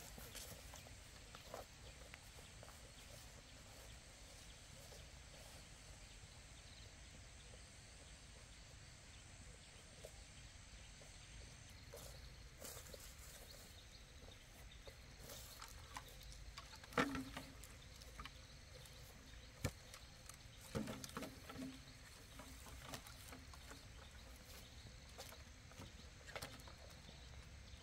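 Near silence: faint outdoor background with a few scattered, faint knocks and clicks.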